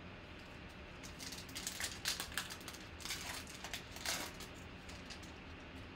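Foil wrapper of a Panini Prizm football card pack being torn open and crinkled by hand: a run of quick crackles starting about a second in and dying away near the four-and-a-half-second mark.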